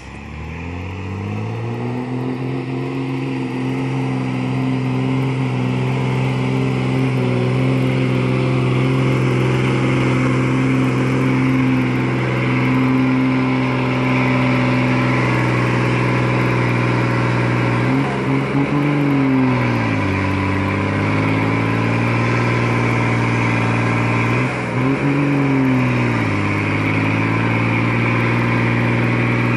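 Old cab-over diesel truck climbing a steep dirt track, its engine labouring at high revs under heavy load. The revs climb in the first couple of seconds, then hold steady, and twice in the second half they sag and build back up.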